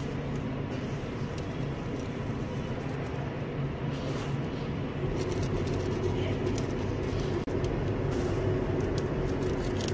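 Steady low hum and rumble of running machinery, a little louder from about halfway through, with faint scattered ticks.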